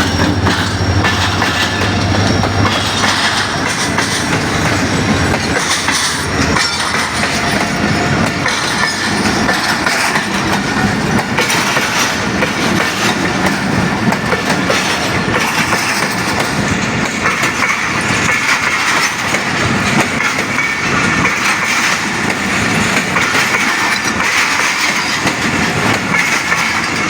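Passenger express train passing close by at speed, its wheels clacking over the rail joints in a steady loud rush of rolling noise, with a low steady hum in the first few seconds.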